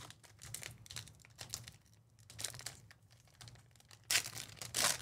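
Crinkling and tearing of plastic trading-card pack wrappers being opened and handled, in irregular bursts, loudest about four seconds in.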